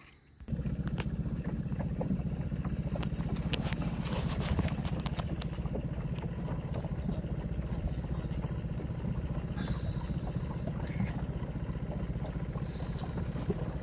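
Boat engine running steadily under way with a dense, fast low pulsing. It comes in abruptly about half a second in.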